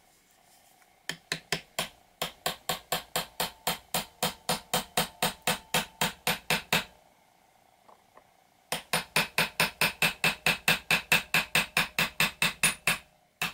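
Hammer tapping a 1/16-inch pin punch to drive the small pin out of a Cetme L rear-sight collar: quick, light metallic strikes, about four to five a second, in two long runs with a pause of about two seconds between them.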